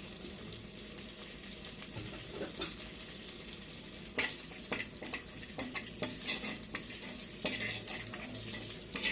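Dried fenugreek leaves (kasuri methi) frying in hot butter in a pressure cooker, with a faint steady sizzle. From about four seconds in, a spoon scrapes and clinks against the metal pot as they are stirred.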